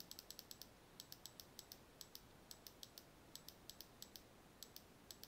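Computer keyboard typing, faint: runs of quick keystrokes with short pauses between them.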